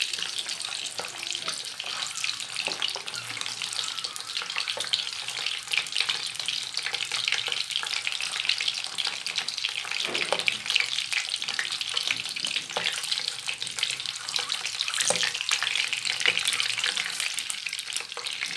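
Boiled eggs frying in hot oil in a nonstick pan: steady sizzling and crackling, with the oil spitting. A few knocks of metal tongs against the pan as the eggs are turned, around the middle.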